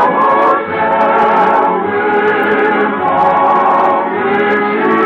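Choir singing a musical interlude, the held voices rising and falling together, heard through the narrow, muffled sound of an early-1950s radio transcription.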